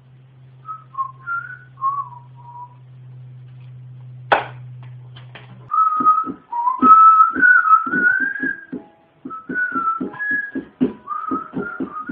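Whistling: a few short whistled phrases, then a sharp click. From about halfway a whistled melody carries on over a regular beat, like a background music track.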